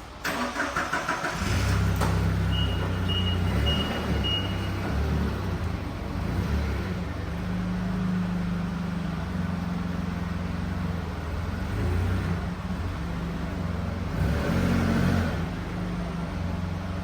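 Forklift engine cranked by its starter and catching about a second in, then running with its speed rising and falling as the forklift works. A short series of high beeps sounds a few seconds in.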